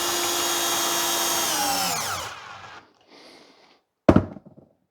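Electric drill driving a standard screw through a plastic hook piece into a wooden stick: the motor runs at a steady pitch, then winds down and stops about two seconds in. A short sharp knock follows about four seconds in.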